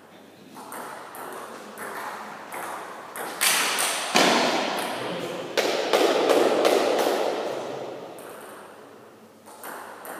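Celluloid-type table tennis ball being struck by rubber paddles and bouncing on the table in a rally: a quick run of sharp ping-pong clicks, about two a second, echoing in the hall. The hits get louder in the middle, then die away as the rally ends.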